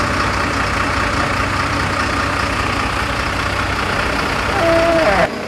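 Fire truck's diesel engine running steadily while its winch is worked to pull a vehicle out of the water. It grows briefly louder near the end, with a short falling tone.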